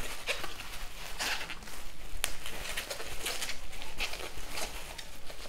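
Plastic bubble wrap crinkling and rustling in irregular bursts as it is pulled open by hand, with one sharp click a little over two seconds in.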